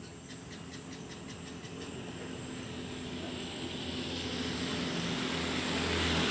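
A vehicle engine running at a steady pitch, growing steadily louder throughout.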